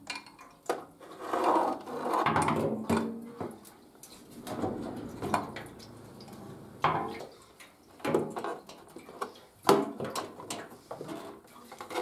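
Handling noises of a motorcycle fuel tank being lowered and worked onto the frame: scattered light knocks, clicks and clatter of the tank against the frame and fittings, between soft rubbing and rustling.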